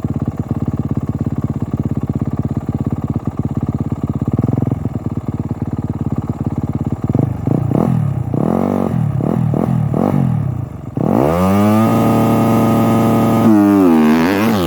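Motocross bike engine idling with a rapid even beat, then revved several times in short blips, then opened up for a start: about eleven seconds in the revs climb steeply and hold high, dipping and climbing again near the end.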